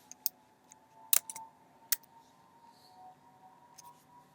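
A few scattered computer keyboard keystrokes, sharp single clicks with pauses between them, over a faint steady hum.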